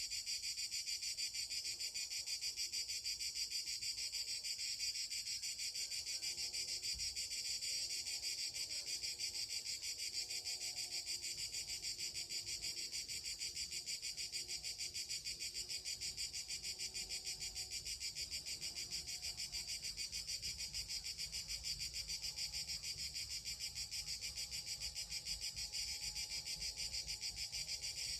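Cicadas (Cicadomorpha) singing in a tree: a continuous high-pitched, rapidly pulsing buzz.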